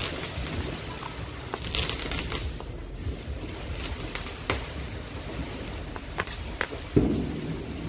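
Neighbourhood fireworks going off: scattered sharp pops and cracks at irregular intervals, with a louder thump about seven seconds in, over a steady low rumble.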